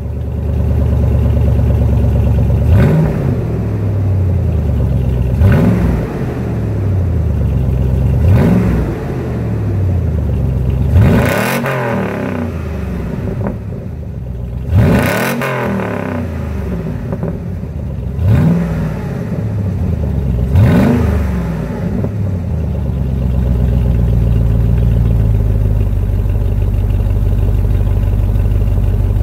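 2004 Hummer H2's 6.0-litre V8 through Flowtech Red Hots glasspack mufflers, revved in seven quick throttle blips two to four seconds apart, each rising sharply and falling back. From about 23 seconds in it settles into a steady idle.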